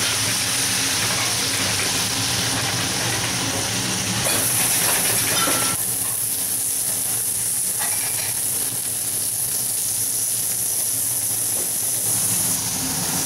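Food sizzling steadily as it fries: mushroom slices in a pan, then split turtle doves searing on a hot griddle plate. The hiss changes about six seconds in.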